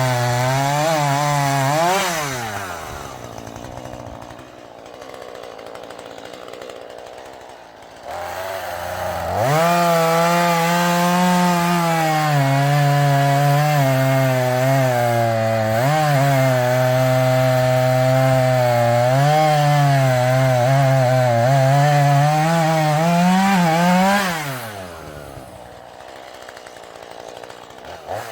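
Husqvarna 440e two-stroke chainsaw: it runs at full throttle, drops to idle for a few seconds, then revs up again and holds high revs with small dips in pitch for about fifteen seconds, as in a long cut through wood. It falls back to idle near the end and revs once more just at the close.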